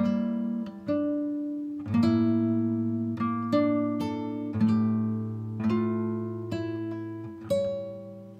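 Background music: acoustic guitar playing plucked chords, a new chord about once a second, each ringing out.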